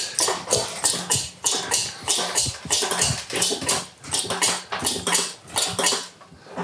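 Manual chain hoist being hauled hand over hand to lift a V8 engine and gearbox, its chain rattling through the hoist in quick clicks, about four or five a second, that die away near the end.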